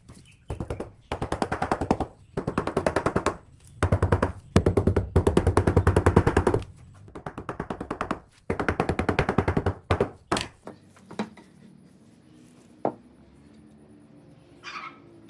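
Wooden mallet tapping rapidly on a glued, segmented pine ring, in runs of quick blows lasting a second or two each, to seat its joints. The tapping stops about ten seconds in, leaving a few faint clicks.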